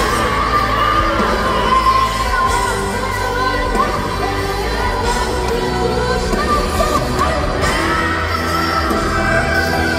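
Live pop music played loud in a large arena: a woman singing lead vocals into a microphone over a live band with drums, guitar and keyboards.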